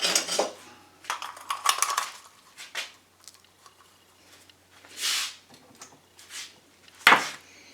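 Metal parts and tools clinking and clattering as they are handled and set down on a hard surface, with a scraping swish about five seconds in and a sharp knock near the end.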